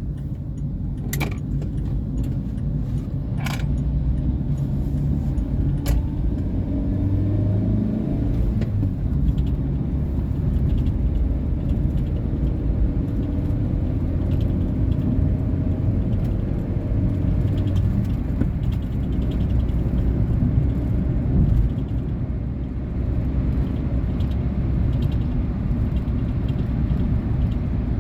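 Cabin sound of a 2019 Volkswagen Polo Vivo being driven: a steady rumble of engine and tyres, with the engine note rising and falling gently. A few sharp clicks or knocks come in the first six seconds.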